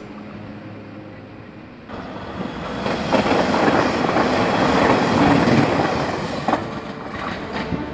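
Taiwan Railway passenger train passing close by at speed: the rumble of its wheels on the rails swells about two seconds in, is loudest in the middle, and eases off near the end, with a few sharp clacks.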